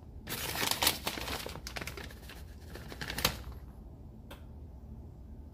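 Dense crackly rustling for about three seconds as a hand grabs and sprinkles shredded cheddar cheese, then a single click about four seconds in.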